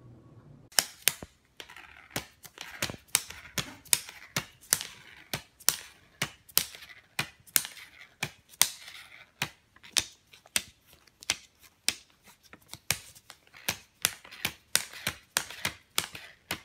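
Plastic polymer banknotes crackling and snapping as a cat digs its nose and paws into a pile of them: an irregular series of sharp crinkles, about two or three a second.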